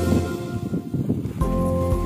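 Background music with steady held tones, broken by a short jumbled stretch in the first second and a half before the held tones return.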